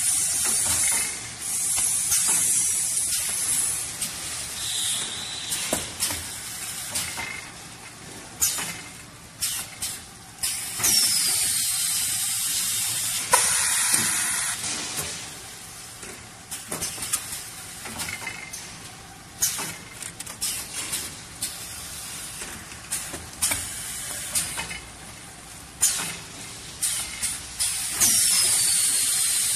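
Small toilet paper wrapping machine running: loud bursts of hissing air every few seconds, some lasting a couple of seconds, among quick clicks and clacks of its mechanism.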